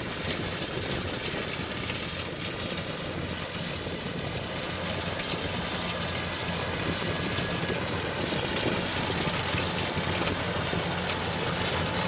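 Kubota DC95M combine harvester's diesel engine and threshing machinery running steadily with a low hum, getting slightly louder.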